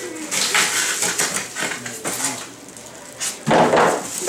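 Packaging being pulled out of an air conditioner's shipping box: rustling, clicks and light knocks, with a louder half-second rush of noise about three and a half seconds in.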